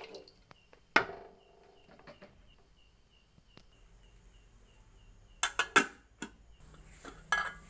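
A sharp knock about a second in, then an aluminium pot lid clattering onto its cooking pot with a quick run of metallic clicks, and a little more clatter near the end.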